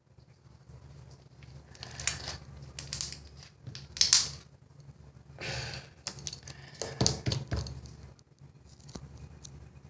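Slime being squeezed and worked by hand, giving irregular crackling, clicking pops, the loudest about four seconds in.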